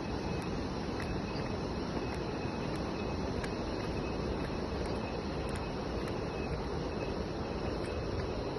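Insects, crickets or similar, trilling steadily in a high thin tone over a constant rushing noise.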